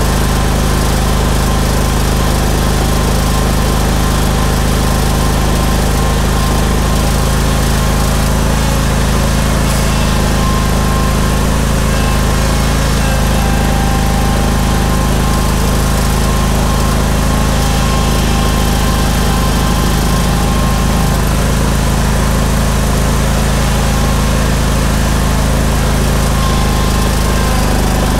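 Briggs & Stratton Vanguard 21 hp V-twin engine of a Steel Green sprayer-spreader running steadily at constant speed.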